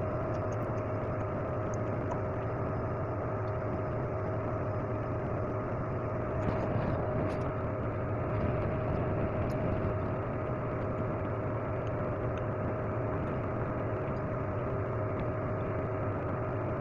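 Steady electric motor hum: a low drone with a fixed higher tone, unchanging throughout, with a few faint light clicks.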